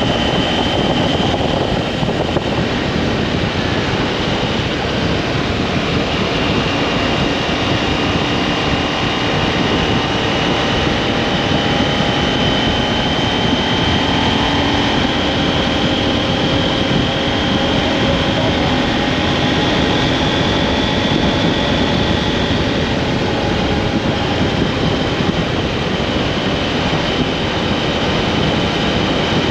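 Motorcycle riding steadily along a road: a continuous rush of wind and road noise on the microphone, with the engine's faint hum slowly drifting in pitch underneath.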